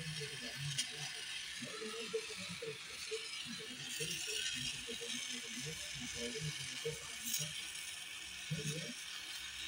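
Gas welding torch flame hissing steadily as it heats an aluminium thermostat housing for brazing, with irregular low sounds underneath.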